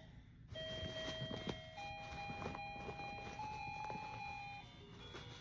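A faint, slow electronic melody of clear held tones stepping from note to note, with a few light clicks.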